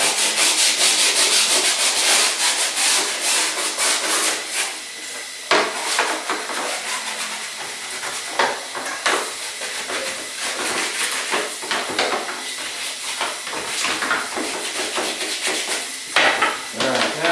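A brush scrubbing a soapy dryer lint screen under a running tap: rapid scrubbing strokes for about the first four and a half seconds, then water running over the mesh as it is rinsed, with a few sharp knocks.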